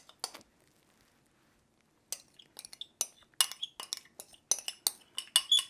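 Metal spoon clinking and scraping against a glass bowl as thick mayonnaise dressing is pushed out of it. There are two clicks at the start, then a pause, then from about two seconds in a quick, irregular run of sharp clinks.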